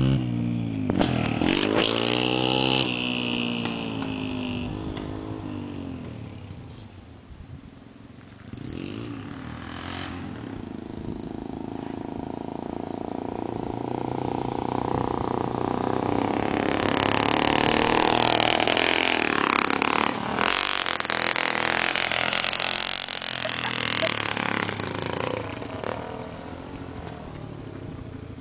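Small Yamaha dirt bike's engine revving hard as it rides away and fades into the distance. It then grows louder as the bike rides back, is loudest as it passes close a little past halfway, and fades again.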